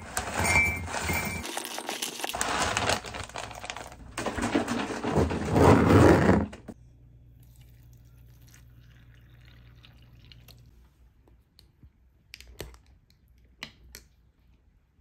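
Granola rattling into a glass mug as it is poured from a bag, for about six seconds. Then a much quieter pour of milk, and two light clinks of a spoon against the glass near the end.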